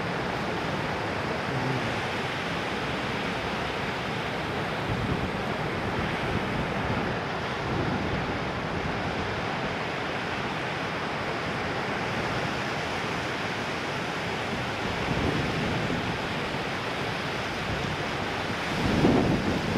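Ocean surf breaking: a steady rush of waves and white water, with a louder surge near the end.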